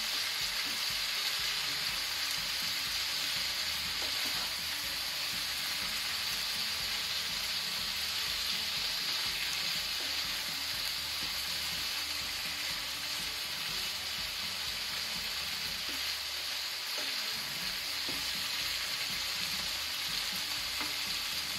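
Chicken pieces, potatoes and tomato masala sizzling steadily as they open-fry in a non-stick frying pan, stirred now and then with a wooden spatula.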